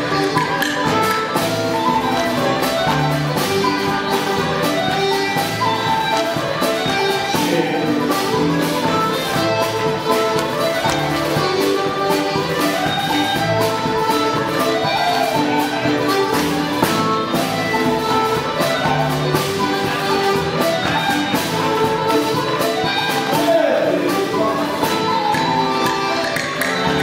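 Irish ceili band playing traditional dance music for set dancing, fiddle among the lead instruments, with a steady dance beat throughout.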